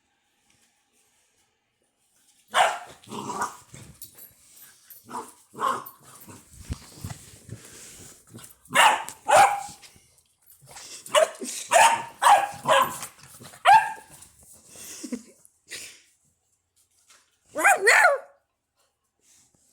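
Labrador retriever puppies barking in a string of short, sharp barks, after a couple of seconds of quiet at the start, ending in a longer cry that bends in pitch near the end.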